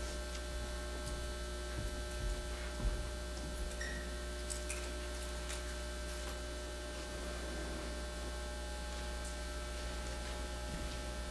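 Steady electrical mains hum, with a few faint knocks and clicks in the first few seconds.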